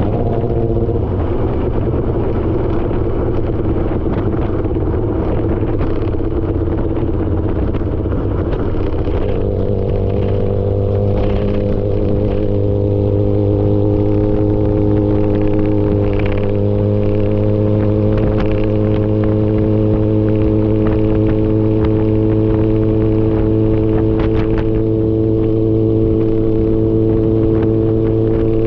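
Yamaha R6's inline-four engine running through an SC-Project titanium exhaust, holding a steady engine speed with the pitch edging up slightly about nine seconds in.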